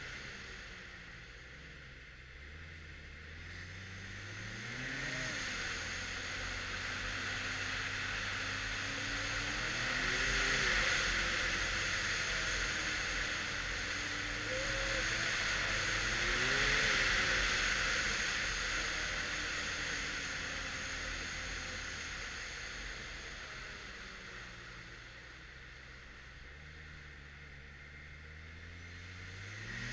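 2013 Arctic Cat XF 1100 Turbo snowmobile's stock turbocharged three-cylinder four-stroke engine running on the trail, its pitch climbing several times as the throttle is opened and dropping as it is eased. A rushing hiss grows louder through the middle and fades near the end.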